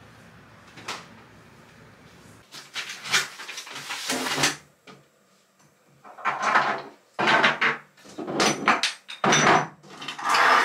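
Clatter of cosmetic bottles and jars being picked up and set down on a vanity desk: several short bursts of knocks, clicks and rubbing from about two seconds in, after a single knock about a second in.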